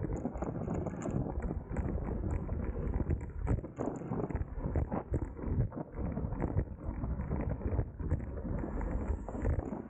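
Wind buffeting the onboard microphone of a racing bicycle at speed: an uneven low rumble with constant small thumps.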